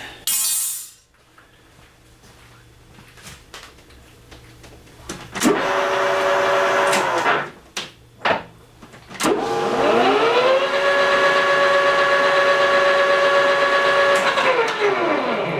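Metal lathe's motor and spindle started and stopped twice: the whine climbs as it spins up, holds steady, then drops as it coasts down, first in a short run of under two seconds, then in a longer run of about five seconds. A short hiss comes at the start, and a few clunks fall between the runs.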